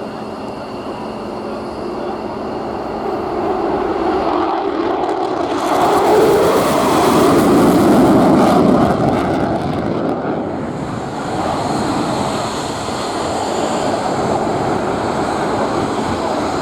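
Boeing F-15QA fighter jet's twin turbofan engines during a flypast. The jet noise builds to a loud peak with a harsh hiss about six to nine seconds in, then eases to a steady rumble.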